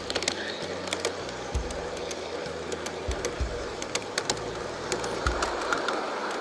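Garden-scale model train running along its track, wheels clicking irregularly over the rail joints, with a few low thumps.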